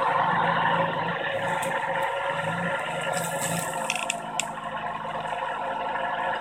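Ardumower DIY robotic lawnmower driving over grass, its electric motors running with a steady whir. A few brief ticks come around four seconds in.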